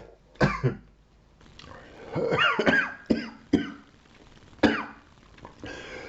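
A man coughing several times: short sharp coughs with a longer strained fit between them, his throat irritated by hot chili.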